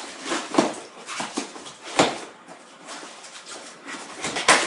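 Cardboard shipping box being closed over crumpled newspaper padding: rustling paper and flaps folding, with several sharp knocks, the sharpest about two seconds in and a few more near the end.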